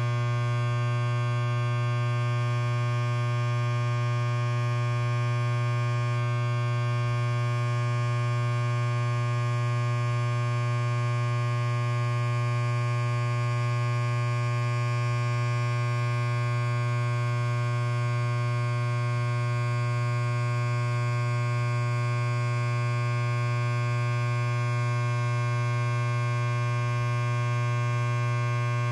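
Electric hair clipper running continuously, a steady low buzzing hum with no change in pitch or level.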